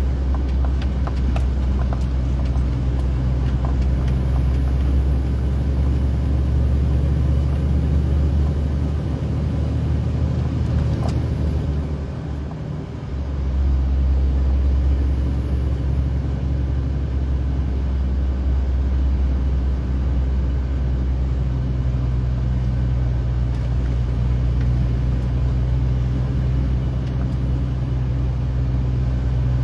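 Steady low drone of a truck's engine and road noise inside the moving cab, dipping briefly about twelve seconds in and then picking up again.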